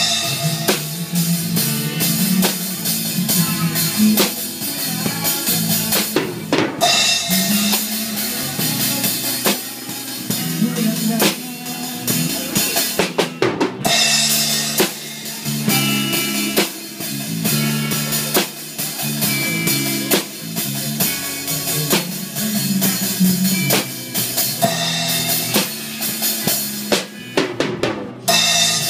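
A live band playing a song, led by a drum kit with bass drum, snare and cymbals, over electric guitar notes. The music breaks off briefly a few times.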